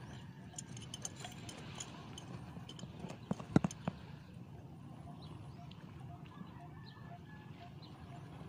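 Light clicks and taps of fishing tackle being handled, a spinning rod and reel and its line, with three sharp knocks a little past the middle, then a soft, even ticking of about two to three a second.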